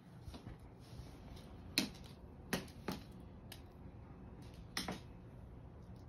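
Nylon pop-up cat tunnel rustling, with a handful of sharp crackling pops as a cat moves around inside it; the loudest pop comes about two seconds in.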